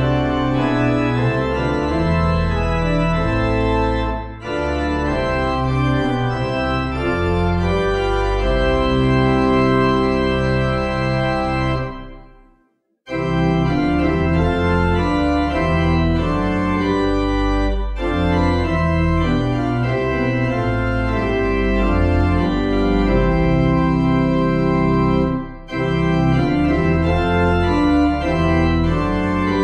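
Organ music playing slow, sustained chords. It fades out briefly about twelve seconds in, then starts again.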